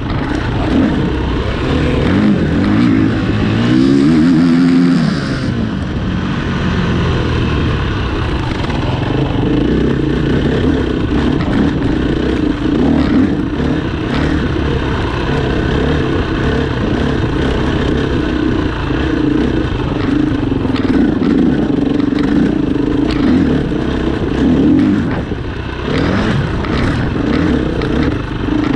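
Engines of racing vehicles running continuously, with one engine's pitch rising and falling as it passes about four to five seconds in.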